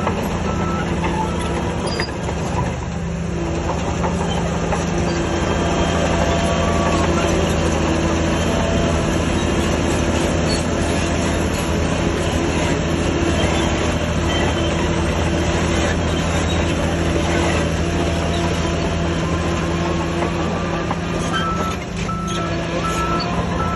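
Heavy diesel earthmoving machinery running steadily under load, with a clattering, train-like mechanical sound throughout. A reversing alarm beeps at the start and again near the end.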